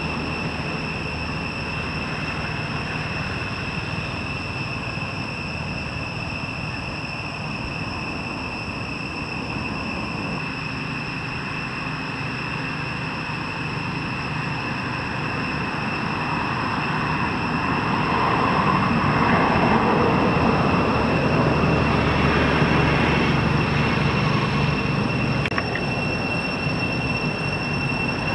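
Steady outdoor background noise with a constant high-pitched whine, growing louder with a low rumble in the second half.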